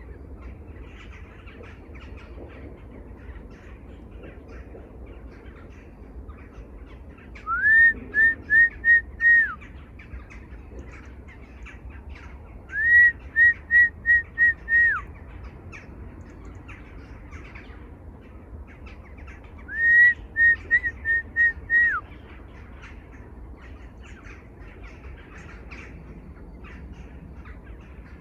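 A bird calling loudly three times, each call a quick run of five or six clear whistled notes, over a steady chatter of many other birds.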